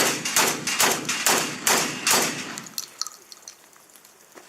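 A shotgun firing a fast string of shots, about two a second, each shot trailing off in an echo; the string stops about two and a half seconds in, leaving only a few faint clicks.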